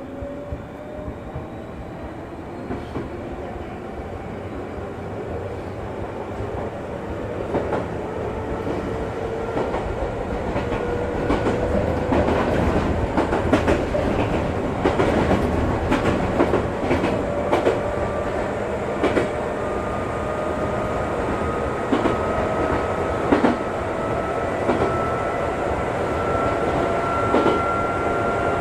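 Electric train heard from inside the car as it gathers speed: the traction motors' whine rises slowly and steadily in pitch while the wheels click over rail joints, the clicks coming more often and the running noise growing louder through the first half.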